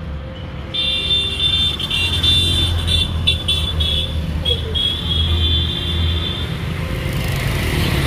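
Road traffic and engines running, a steady low rumble, with a high-pitched whine setting in about a second in and stopping after about six seconds.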